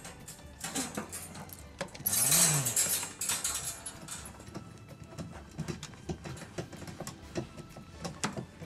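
Handling noises as a hand strokes cats: light taps and rubbing, with one louder brushing burst about two seconds in.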